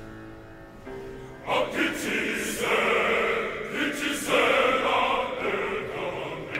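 Choir singing an African choral song in harmony: a quiet held chord, then the full choir comes in loudly about a second and a half in, with a few sharp strikes over the singing.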